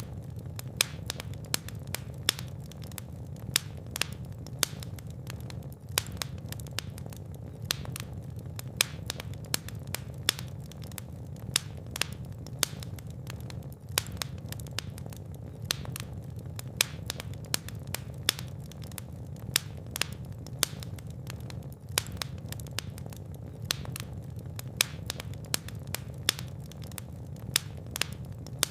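Fireplace fire crackling, with frequent sharp, irregular pops and snaps over a steady low rumble of flames.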